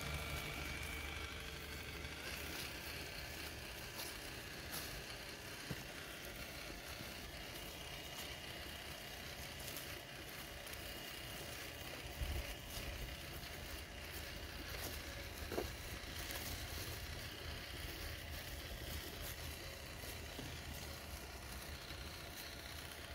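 Traxxas TRX-4 RC crawler's electric motor and gearbox whirring as it drives over woodland ground, with a faint whine that is clearest in the first couple of seconds, scattered clicks, and two short knocks about halfway through.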